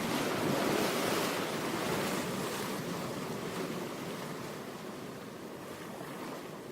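Ocean waves washing in as a steady rush, swelling about a second in, then slowly receding.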